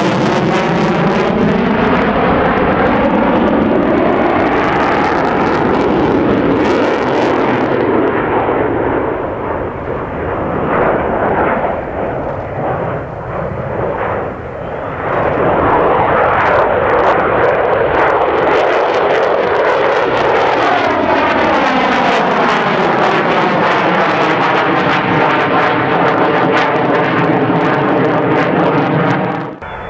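Mitsubishi F-2 fighter's single afterburning turbofan jet engine roaring overhead during a display flight, with a sweeping, phasing rush as the jet passes and turns. It fades somewhat in the middle, swells loud again, then cuts off abruptly near the end.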